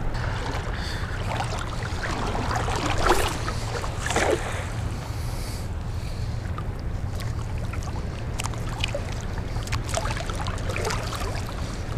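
Steady low wind rumble on the microphone over a wash of water noise, with two brief louder sounds about three and four seconds in.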